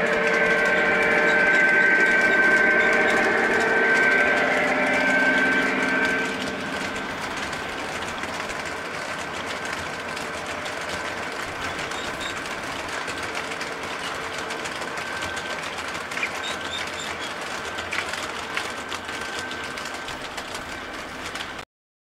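O gauge three-rail model train running: the Conrail model diesel locomotives pass with a steady motor and gear whine, louder for the first six seconds or so. After that comes a quieter steady rolling noise of the freight cars on the track with a few clicks. The sound cuts off abruptly near the end.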